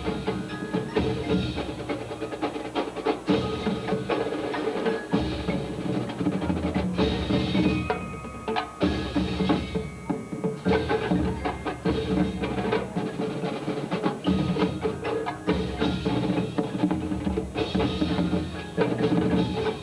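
Full marching band playing a swing-era big-band jazz arrangement, with brass and saxophones over steady, prominent drum and percussion strokes.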